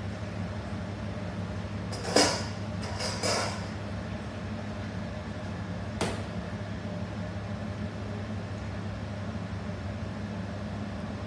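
Metal ladle clinking and scraping against a stainless steel stockpot while sauce is ladled, loudest about two and three seconds in, with a single sharp click about six seconds in, over a steady low hum of kitchen equipment.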